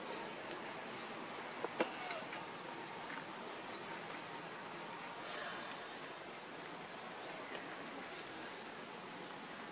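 Outdoor ambience: a steady hiss with a short, high rising chirp repeating about once a second. Two sharp clicks come just under two seconds in.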